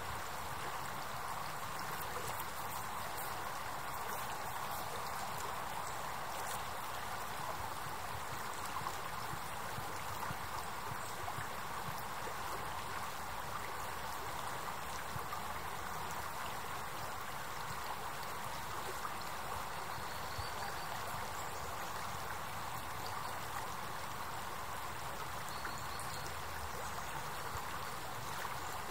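River water flowing steadily: a constant, even wash of moving water.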